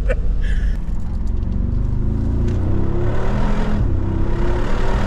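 Mercedes-AMG G63's twin-turbo V8 pulling hard under acceleration, its note climbing in pitch over a heavy low rumble, with a loud rush of exhaust and road noise in the second half.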